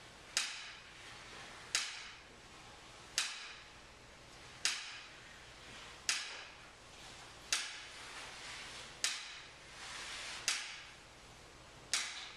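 Sharp clicks repeating at a steady, even pace, about one every second and a half, each trailing off briefly in the room's echo.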